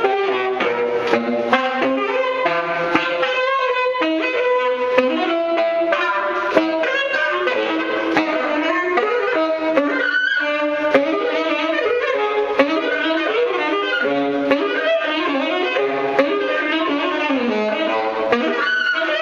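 Saxophone improvising freely in quick, shifting runs of notes, with other pitched notes layered underneath it throughout.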